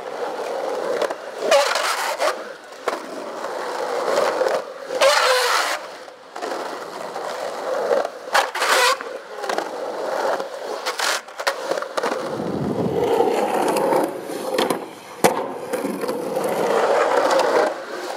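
Skateboard wheels rolling over rough concrete and asphalt, a steady gritty rumble, broken by several sharp clacks of the board striking the ground.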